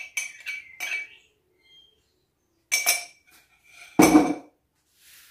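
A small utensil clinking and tapping against a jar as goose fat is scraped out into a frying pan, in quick clusters of sharp clicks. About four seconds in comes a heavier knock as the jar is set down on the counter.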